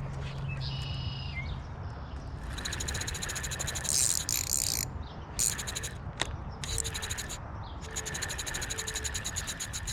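A short high chirp about a second in, then a fast, buzzing pulsed trill from a wild creature that starts about two and a half seconds in and breaks off briefly a few times, over a steady low rumble.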